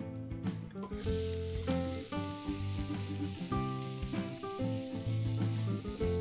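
Diced onion and carrot sizzling in olive oil in a stainless steel pot while being stirred with a silicone spatula. The sizzle starts suddenly about a second in, over background music.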